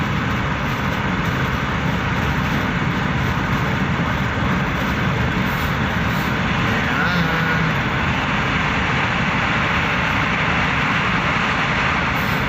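Steady road and engine noise inside a moving car's cabin at highway speed, tyres running on the road.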